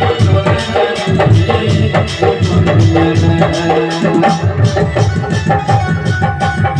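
Devotional ensemble music: a keyboard playing held melody notes over hand drums that keep a fast, steady beat.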